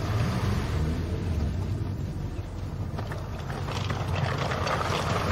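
A vehicle engine running with a steady low rumble, the noise growing a little louder toward the end.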